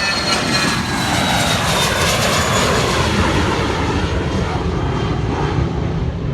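Cessna Citation business jet's twin turbofan engines at takeoff power as it climbs away after liftoff: a loud, steady rush with a high whine slowly falling in pitch.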